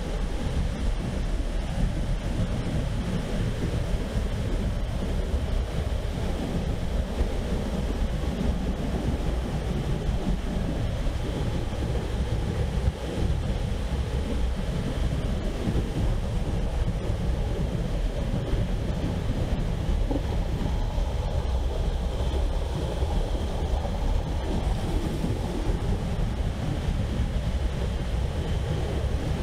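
Steady rushing noise of flowing river water, with wind rumbling on the microphone.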